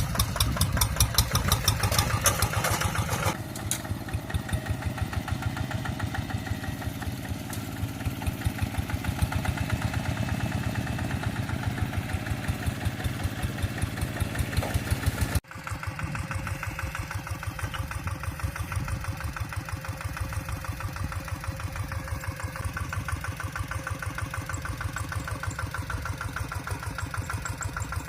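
Single-cylinder Kubota RD85di diesel engine of a Quick TL800 two-wheel hand tractor running, with an even, rapid chug of firing pulses. It is louder for the first three seconds or so, then steadies, and cuts out for an instant about halfway through before carrying on.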